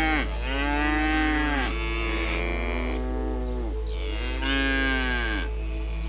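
An animal giving a run of drawn-out calls, one after another about every second or two, each rising and then falling in pitch, over a steady low hum.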